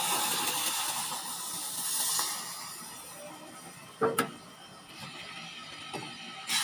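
Chicken broth poured from a bowl into a pot of hot butter-and-flour roux: a loud, hissing rush of liquid that fades after about two seconds, the stage where the stock goes into the roux to make gravy. Two sharp knocks follow about four seconds in.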